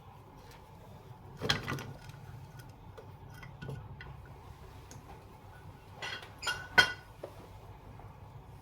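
Metal tools and ceiling-fan parts clinking and knocking together: a sharp clank about a second and a half in, scattered light ticks, then a few more clanks around six to seven seconds in, the last the loudest.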